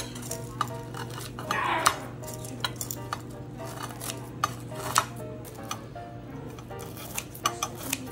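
Cutlery and dishes clinking in scattered, irregular clicks, with a short scrape about a second and a half in, over background music.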